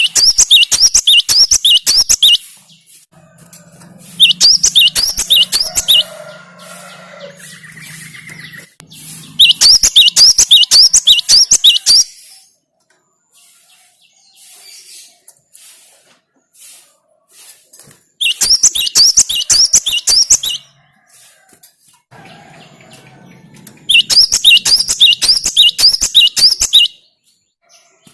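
Cinereous tit (gelatik batu) singing: five bouts, each two to three seconds of quick repeated high notes, separated by pauses.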